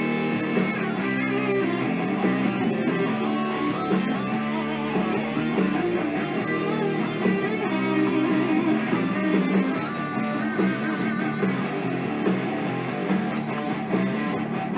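Background music led by guitar, playing at an even level under the work.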